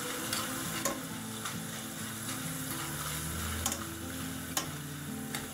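Thin potato slices sizzling in hot frying oil in a stainless steel pan while a slotted metal spatula stirs them, with several light clicks of the spatula against the pan. The chips are at the stage where they begin to colour.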